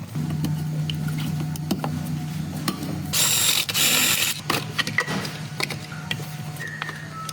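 Hand tools working on metal in an engine bay, with scattered clicks and ratcheting. There are two loud hissing bursts about three to four seconds in, over a steady low hum.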